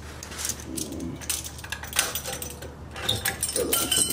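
Irregular small metal clicks and clinks of pliers working a spring retaining clip off a Brembo brake caliper during a brake pad change, with a couple of brief metallic pings near the end.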